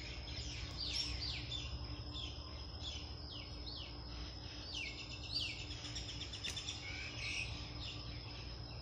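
Many short, high, falling animal chirps, about two or three a second, over a steady high-pitched insect drone and a faint low hum.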